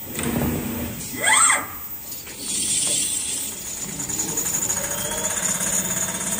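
Richpeace automatic furniture sewing machine at work: a short loud whine rising then falling in pitch about a second in, then a fast steady needle rhythm as it stitches, its motor tone gliding up a little near the end.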